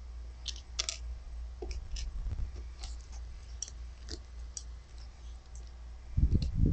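Scattered light clicks and ticks of small plastic toy-brick pieces being handled on a wooden table. About six seconds in, fingers reach in to pick pieces up, bringing a run of louder low thumps.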